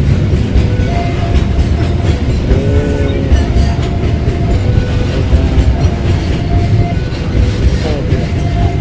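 Freight train of covered flat wagons rolling past close by: a loud, steady rumble and clatter of wheels on the rails, with brief thin squeals coming and going.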